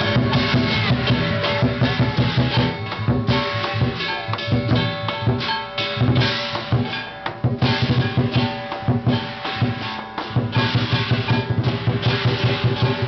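Lion dance percussion: a large Chinese drum beaten in fast, dense strokes, with ringing cymbals over it.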